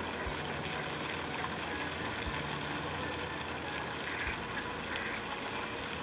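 Steady outdoor background noise with a low engine hum, as of distant motor traffic.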